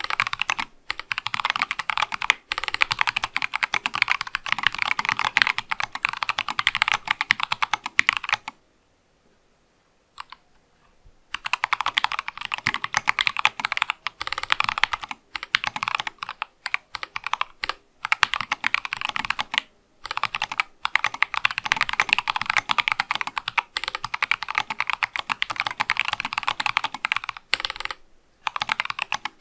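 Rapid typing on an Acrylic Sesame mechanical keyboard with C3 Kiwi tactile switches, a dense run of keystrokes. About a third of the way in the typing stops for roughly three seconds, with a single keystroke in the pause, then resumes at the same pace with a few short breaks.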